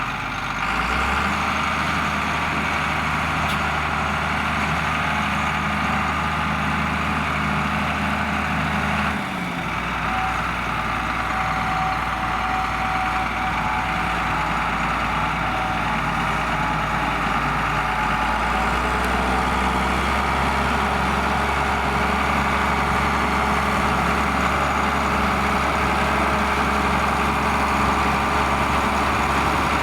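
John Deere 4850 tractor's six-cylinder turbo diesel engine running steadily, pulling a six-furrow plough. The engine note drops about nine seconds in and the low drone grows stronger near the middle.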